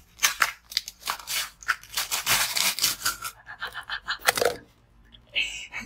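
A plastic bottle crinkling and crackling as it is squeezed and pulled off a column of frozen red slush, with rapid crackles and scraping that die away about four and a half seconds in.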